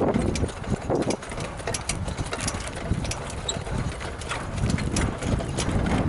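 Hoofbeats of a standardbred trotter pulling a sulky: a run of sharp, uneven hoof strikes over a steady low rumble.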